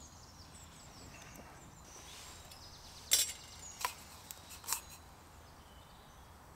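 Three sharp pops from the campfire's embers, about three to five seconds in, over a faint outdoor background with a few high bird chirps near the start.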